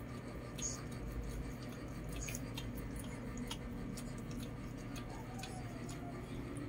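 Lhasa Apso mother dog licking her newborn puppies: a string of soft, wet clicks and smacks.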